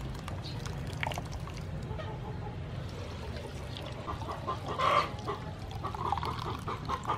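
Chickens clucking in a run of short calls from about four seconds in, the loudest about a second later. Under them, coconut milk trickles and splashes as it is poured through a mesh strainer.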